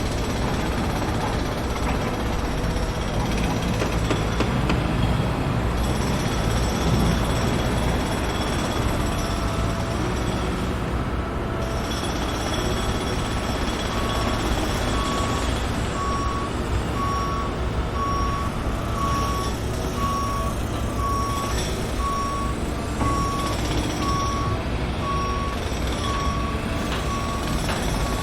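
A heavy construction vehicle's engine runs with a steady low rumble. About halfway in, its reversing alarm starts beeping about once a second, one steady tone per beep, the sign that the vehicle is backing up.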